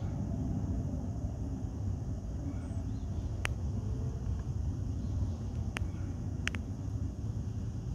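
Steady low outdoor rumble, with a few brief sharp clicks in the second half; the hen sitting on the nest makes no audible call.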